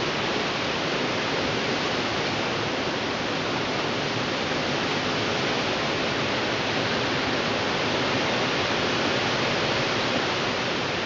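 Hurricane-force wind making a steady, even rush with no gusts or breaks standing out.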